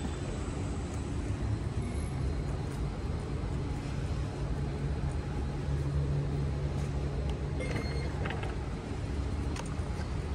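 Steady low rumble and hum of a metro station concourse's machinery and ventilation, with a few faint clicks late on.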